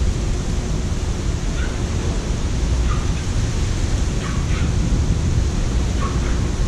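Strong wind buffeting the microphone, a steady low rumble, with surf in the background. Five or six short, faint calls sound at irregular gaps across it.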